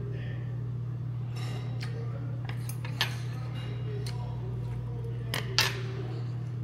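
Spoon and chopsticks clinking against a soup bowl while eating: a handful of sharp clinks, the loudest one near the end, over a steady low hum.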